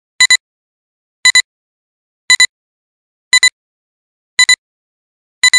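Countdown sound effect: six short pitched double beeps, evenly spaced about a second apart.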